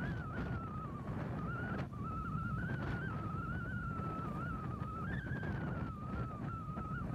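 Low, steady rumble of the Great Lakes freighter Arthur M. Anderson passing close by, with a thin, wavering high whine over it that drops out briefly about a second in and again near the end.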